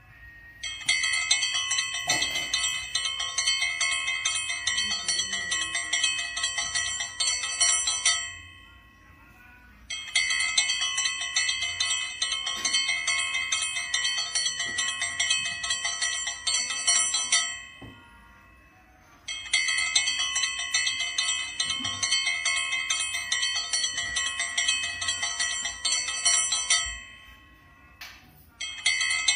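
Puja hand bell rung rapidly and without a break in long bursts of about seven seconds, with a short pause of a second or two between bursts.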